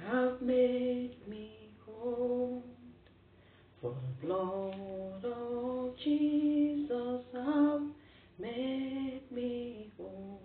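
A woman singing a worship song unaccompanied, in short phrases of held notes with brief pauses between them.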